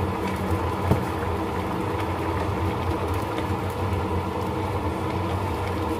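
Steady low mechanical hum over a pan of bamboo-shoot and coconut vegetable soup boiling on a gas stove, with a wooden spatula stirring it.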